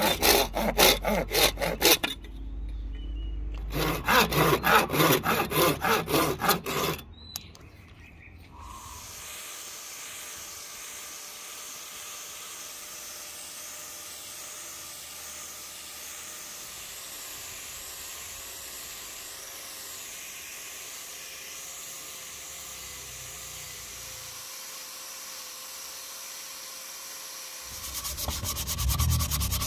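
Saw cutting wood in quick back-and-forth strokes, in two runs with a short pause between. A long stretch of faint steady hiss follows. Near the end, sandpaper starts rubbing on wood.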